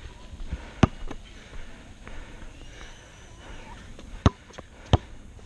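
Basketball bouncing on an outdoor asphalt court: one sharp bounce about a second in, then two more near the end as the ball is dribbled, with heavy breathing between the bounces.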